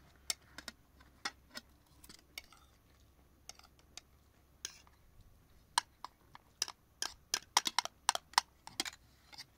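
Sharp, irregular clinks of cutlery against dishes, sparse at first and coming thick and fast over the last few seconds.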